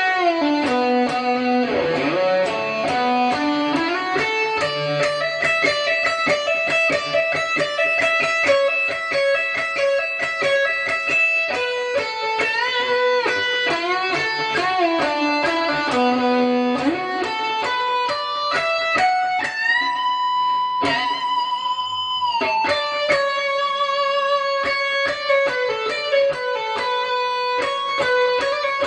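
Ibanez RG420 electric guitar played through a Boss ME-80 effects unit: a slow melodic lead solo of sustained, bending notes with vibrato and quick runs between them. A long held note comes about two-thirds of the way through.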